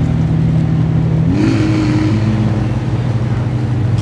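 McLaren Senna GTR's twin-turbocharged 4.0-litre V8 running at low revs as the car rolls slowly. The revs rise quickly about a second and a half in, with a short hiss, and then hold a little higher.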